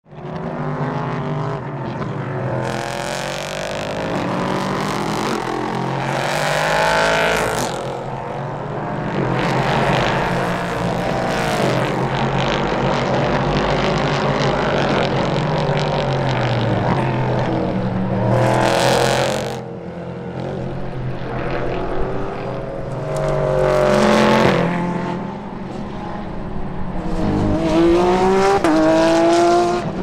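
LMP3 prototype and GT3 racing cars passing one after another at speed. The engines rev up through gear changes and drop on the lift, and the pitch falls as each car goes by. The loudest passes come about 7, 19, 24 and 29 seconds in, and the last is a steady rising climb through the gears.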